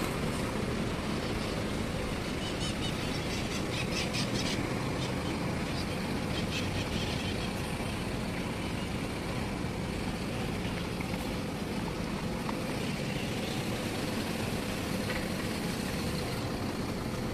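Steady city street traffic noise, an even hum of cars and buses.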